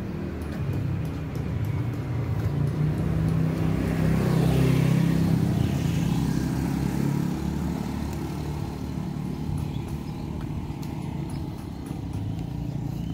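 Small motorcycles passing close by on a narrow road. The engine hum and rush grow louder to a peak about four to five seconds in, then fade.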